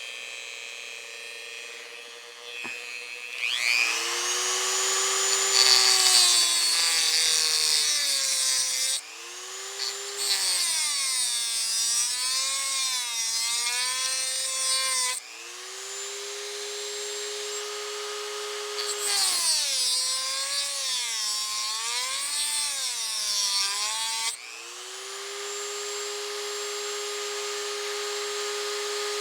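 Dremel rotary tool cutting into the cast metal around a two-stroke carburetor's high and low needle adjusters. The motor whine starts a few seconds in and wavers and dips in pitch as the tool bites, with a gritty high hiss of cutting coming and going in about four spells.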